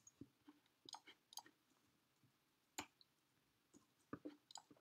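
Near silence with faint, irregular clicks of computer keyboard keys being typed.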